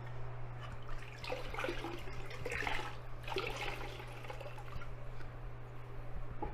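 A sponge dunked into a bucket of water and wrung out, with a few short splashes and drips of water falling back into the bucket, over a steady low hum. The sponge is being wetted to dampen concrete tile before setting.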